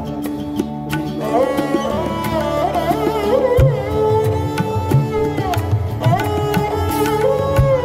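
Background music in an Indian classical style: hand drums and a steady drone under a melody that glides between notes.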